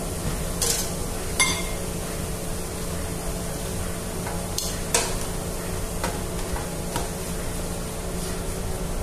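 Metal tongs clinking and scraping against a stainless steel hotel pan as sauce-coated pork spareribs are lifted out, a handful of short sharp clinks at irregular times over a steady background hum.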